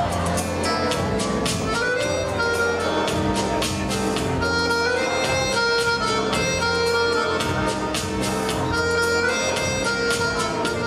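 Live accordion dance music from a small band: an accordion melody of sustained reedy notes over a steady beat.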